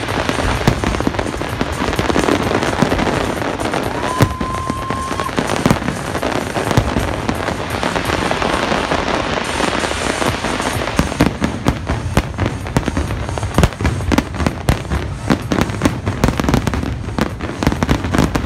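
Fireworks display: shells bursting and crackling in close succession, the crackle thickening into rapid pops in the second half. A short steady whistle sounds about four seconds in.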